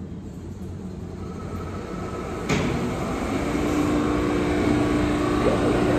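New York City subway C train at the platform, beginning to pull out: low rumble, a sudden clunk about two and a half seconds in, then a steady hum that grows louder.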